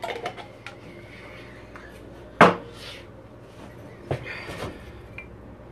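Kitchen handling knocks: a few light clicks at the start, one loud knock about two and a half seconds in, then two softer knocks around four seconds in, as a jar and cookware are handled and set down.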